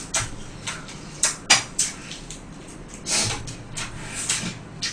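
Eating sounds at a table: scattered short clicks and crunches of fried chicken being bitten and chopsticks against boxes and dishes, with a longer rustle about three seconds in.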